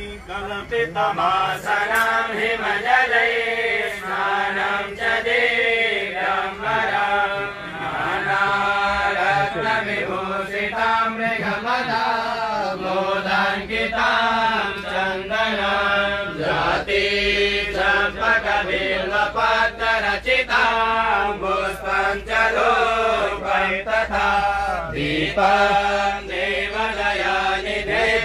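Sanskrit mantra chanting: a melodic recitation in continuous phrases, with short pauses between lines.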